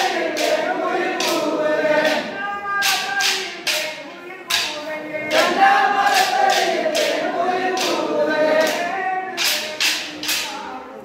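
A group singing a folk song together, overlaid by kolattam sticks clacking sharply in rhythm as the dancers strike them together; the singing thins for about a second near the middle, then picks up again.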